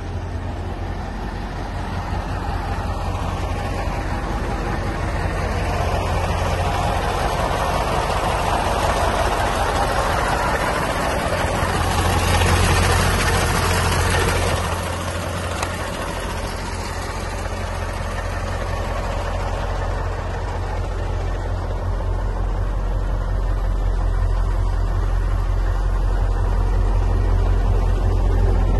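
1985 Mercedes-Benz 2628 truck's V8 diesel engine idling steadily with a low hum, louder for a few seconds about halfway through, then dropping back suddenly.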